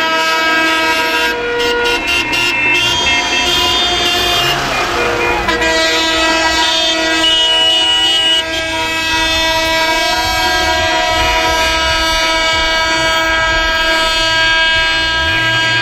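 Many car horns from a convoy sounding together, held as a steady, overlapping chord of several pitches, with individual horns dropping out and joining in.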